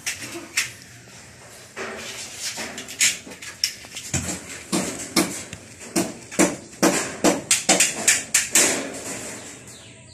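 Irregular knocks, clicks and scrapes of a hand tool working on a window frame fitted into a concrete wall opening. They are sparse at first and come thick and fast from about four seconds in.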